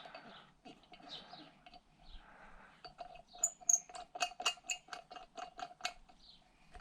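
Quick, even clicking of a ratchet spanner, about five clicks a second, starting about halfway in and running for a few seconds as the bolts of a flywheel puller are wound in.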